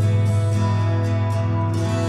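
Background music: soft plucked notes over a steady held low note.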